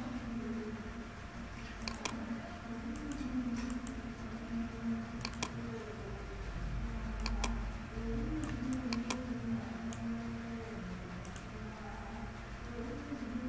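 Scattered clicks of computer keys and a mouse, in small irregular clusters, over a steady low background hum.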